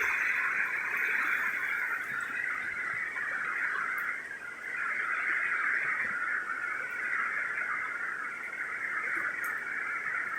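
A dense, steady chorus of many frogs calling together, a continuous high-pitched trilling wash with no single call standing out.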